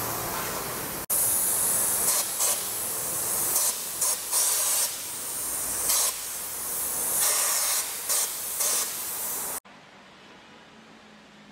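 Compressed-air hiss of a paint spray gun, steady runs broken by several brief louder blasts. It stops abruptly near the end, leaving faint room tone.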